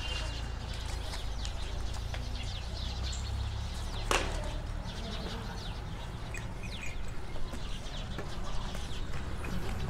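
Birds chirping over a low rumble, with one sharp knock about four seconds in.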